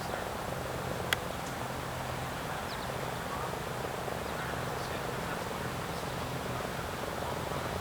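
Outdoor background noise: a steady hiss with a faint low hum, a few faint short chirps, and one sharp click about a second in.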